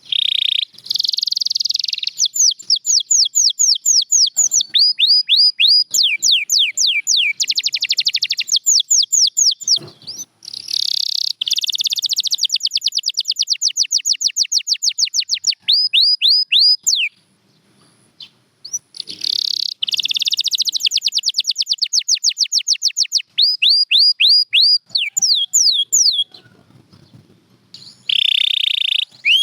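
Domestic canary singing: long, fast trills of repeated down-sweeping notes alternating with buzzy rolls, in phrases broken by a few short pauses.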